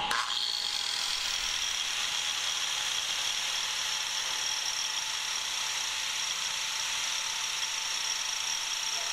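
Random orbital sander running steadily against the edge of a wooden tabletop, with a dust extractor drawing through its hose: an even high whine over a hiss.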